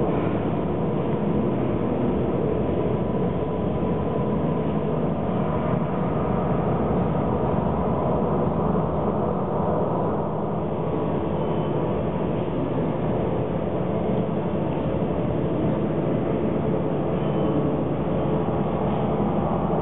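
Steady, dense low rumble with faint steady tones over it: the sound of a video art installation played in the gallery.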